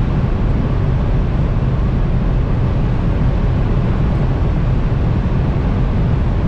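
Steady, loud cabin drone of a 2016 Subaru WRX STI running flat out in sixth gear at about 230 km/h. The turbocharged flat-four, wind and tyre noise blend into one deep, even roar, with the speed still slowly climbing.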